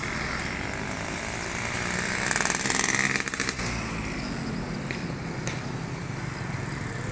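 Street traffic with a motorcycle passing close by: its engine grows louder about two seconds in, peaks with a fast buzzing rattle, then fades, over a steady hum of other traffic.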